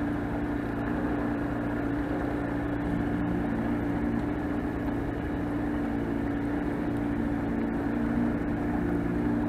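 A boat's motor running steadily at low speed, a constant hum.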